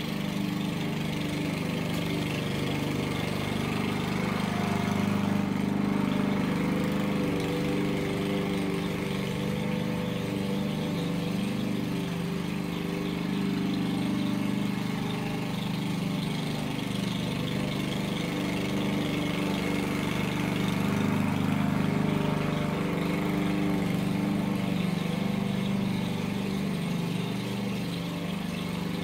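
Pull-start gasoline walk-behind lawn mower running steadily while cutting grass, its level rising and falling slightly as it is pushed back and forth.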